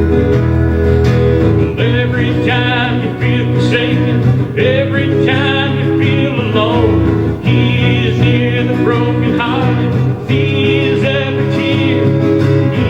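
Worship song music: sustained chords with guitar and a wavering melody line that enters about two seconds in.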